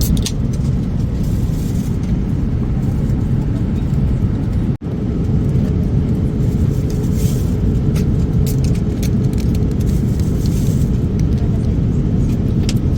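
Loud steady rumble of a Boeing 787 airliner's engines and airflow heard from inside the economy cabin, with light rattling clicks on top. The sound cuts out for an instant about five seconds in.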